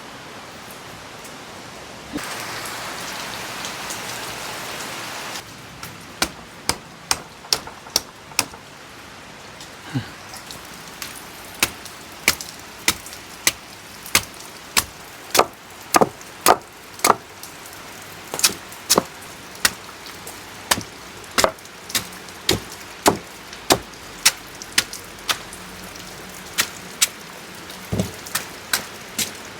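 A long run of sharp chopping strikes, irregular at about one or two a second, starting about six seconds in, over a steady hiss of rain; a louder rush of hiss runs for about three seconds before the strikes begin.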